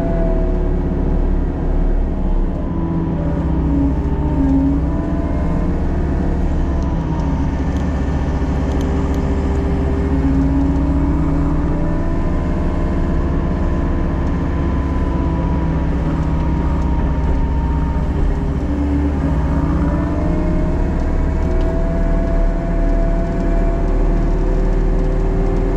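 Engine of a working excavator or similar tracked construction machine running steadily, its pitch sagging and recovering several times as it takes on load.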